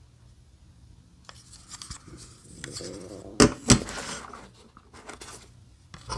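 Unboxing items being handled and laid out on a desk: a stretch of paper and card rustling, two sharp knocks about halfway through as things are set down on the tabletop, and another knock at the very end.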